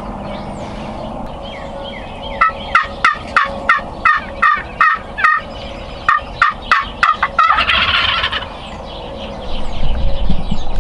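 Merriam's wild turkeys calling: a quick run of about fifteen sharp notes, roughly three a second, with a short break in the middle and a brief rough burst right after. A low rumble comes in near the end.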